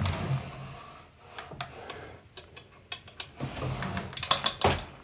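Wooden dresser drawers being handled and pulled open: wood scraping and knocking against wood, with a few knocks at the start and a busier run of rattling clicks and scrapes near the end.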